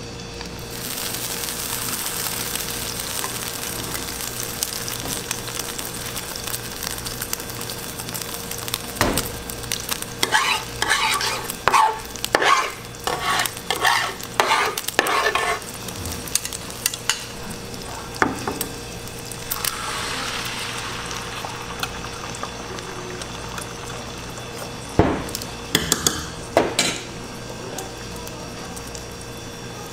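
Egg mixture sizzling in an oiled flat griddle pan, with a run of quick scrapes and knocks of plastic spatulas against the pan in the middle and a few more knocks near the end.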